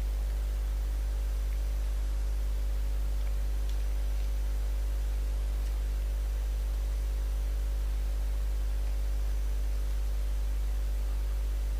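Steady low electrical hum with faint hiss, the mains hum of the recording equipment.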